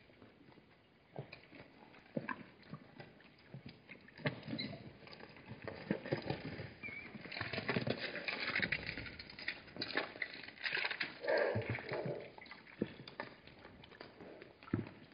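Hartmann's mountain zebras milling around a waterhole: scattered hoof steps and scuffs on gravelly ground. The steps get busier and louder in the middle.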